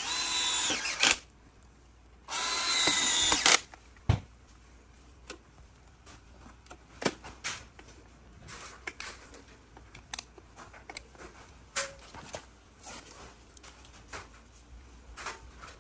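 Cordless drill-driver driving screws into a plastic surface-mount switch box: two short runs of about a second each, the motor whine dropping in pitch as each screw seats. After them come faint clicks and taps of a hand screwdriver working in the box.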